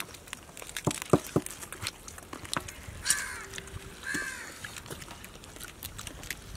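Crab shells cracking and snapping as people eat crab gravy and rice by hand, with a few sharp cracks about a second in. Two short harsh calls come at about three and four seconds.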